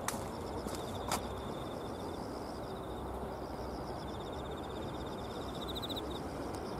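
Insects trilling in late-summer riverbank grass: several overlapping high, finely pulsed trills that come and go, over a steady low outdoor hiss. There are two sharp clicks near the start and about a second in.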